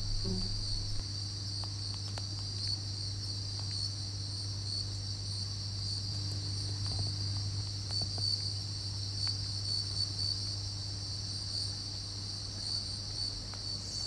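Crickets chirping steadily in a continuous high-pitched chorus, over a low steady hum.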